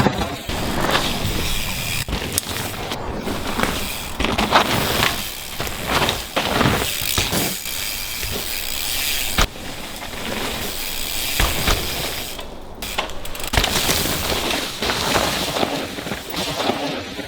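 Mountain bike ridden hard on a dirt trail: tyres crunching and skidding over dirt and stones, with frequent clattering knocks from the bike and rush of wind. The noise breaks off briefly a few times.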